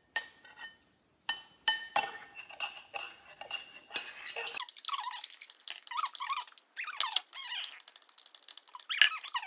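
Glue and laundry detergent being stirred in a mixing bowl: a few clinks and knocks, then about five seconds of squeaking and scraping from about four seconds in.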